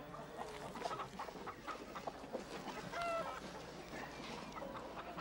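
A flock of domestic hens clucking, many short calls overlapping, with one louder drawn-out call about three seconds in.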